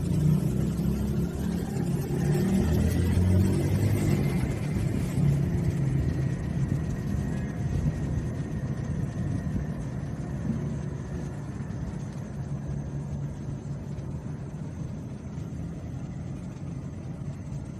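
Street traffic passing: a low vehicle engine rumble, loudest in the first few seconds, easing to a steadier, quieter hum.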